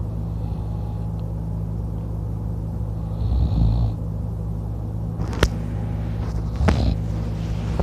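Open-mouthed snoring of a man sleeping on his back: one rasping snore about halfway through, a fainter breath near the start, over a steady low hum. Two sharp clicks come in the second half.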